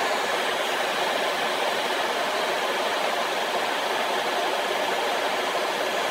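Counterfeit Dyson Supersonic-style hair dryer running with a steady rush of blown air.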